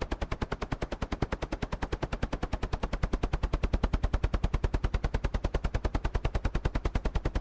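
Helicopter rotor blades chopping at a steady, rapid, even beat, with no engine sound.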